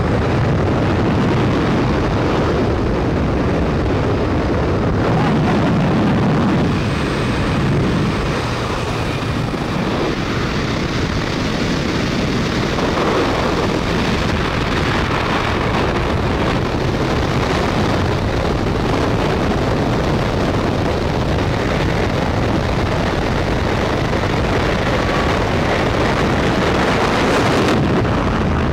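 Loud, steady rush of freefall wind buffeting a skydiving camera flyer's microphone, with aircraft engine noise at the open jump door in the first few seconds.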